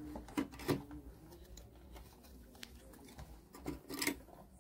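Scattered light clicks and taps of hand tools working on an amplifier circuit board while a small capacitor is being removed, over a steady low hum.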